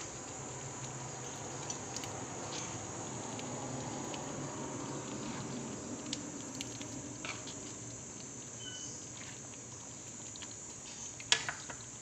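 Thick mung bean stew (monggo) simmering in a pan: a steady soft hiss with scattered small bubbling pops. There is one sharp click near the end.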